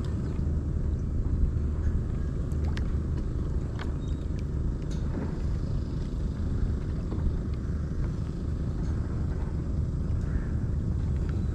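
Steady low rumble out on the open water, with a few faint taps now and then.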